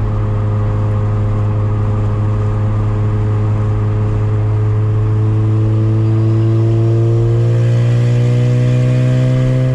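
Street-ported rotary engine of a big single-turbo Mazda RX-7, heard from inside the cabin, running at a steady cruise with a deep drone. About halfway through its pitch starts to rise slowly and it grows a little louder as the car picks up speed.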